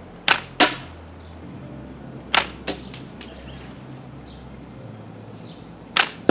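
Homemade crossbow shooting bolts: three shots, each heard as two sharp cracks about a third of a second apart.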